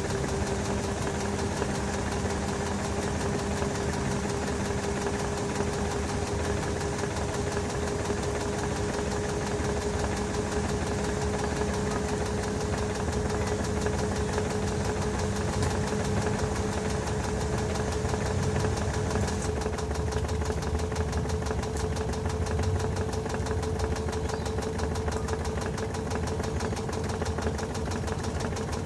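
LG TurboDrum WT-R852 top-loading washing machine spinning a full load of bedding. Its motor whine rises slowly and steadily in pitch over the drum's running noise, and a lower hum drops out about two-thirds of the way through.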